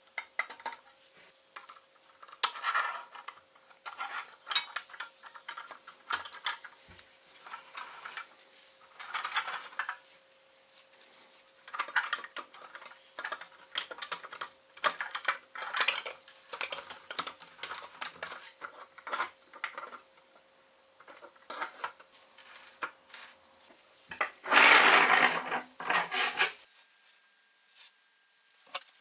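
Small steel toy-truck parts clinking, tapping and scraping against each other as they are handled and fitted together, in irregular bursts. Near the end comes a louder, longer rasping scrape lasting about two seconds.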